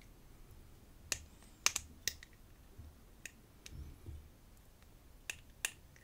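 Scattered sharp clicks, about six at irregular spacing, as a steel gut wrench is worked against the circlip on the back of a brass padlock plug to push it off. Soft handling bumps come in between.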